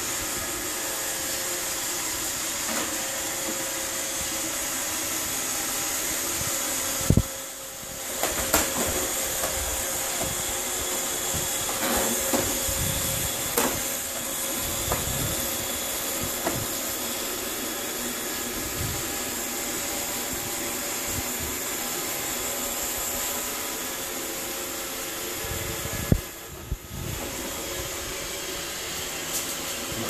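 iRobot Roomba robot vacuum running, a steady whirring hum with a hiss from its motor and brushes. Two sharp knocks break it, about seven seconds in and again near the end, each followed by a brief dip in the whir.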